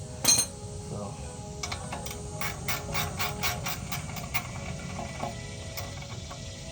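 Sharp metallic clink just after the start, then a hand socket ratchet clicking evenly, about three clicks a second for a few seconds, as a rear brake caliper bolt is turned out.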